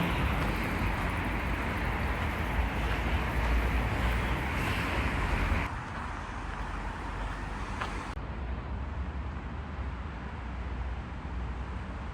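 Outdoor ambience with a steady low rumble and hiss, like wind on the microphone; it drops suddenly to a quieter hiss about halfway through.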